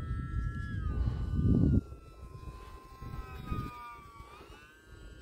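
E-flite UMX Timber X's electric motor and propeller whining in flight, the pitch sagging and then rising again as the throttle changes. Wind rumbles on the microphone until about two seconds in, then stops suddenly.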